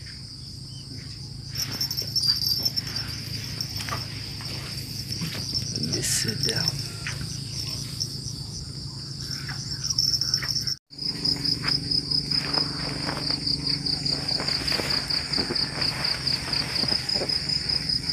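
Insects chirping in a steady high trill. After a short break about eleven seconds in, the chirping goes on in regular pulses, about three or four a second, with faint rustling and a low steady hum underneath.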